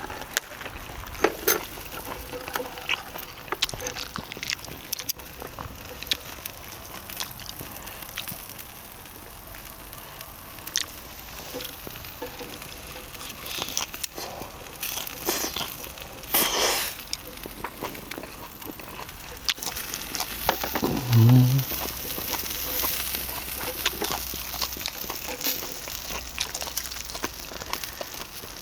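Duck meat grilling over a charcoal fire: steady sizzling with frequent sharp crackles and pops from the coals and dripping fat. A short low voice-like sound about 21 seconds in is the loudest moment.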